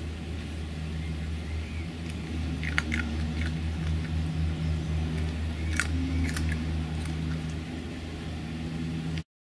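Red fox cub crunching and chewing dry food pellets, with a few sharp crunches about three seconds in and again around six seconds, over a steady low hum. The sound cuts off just before the end.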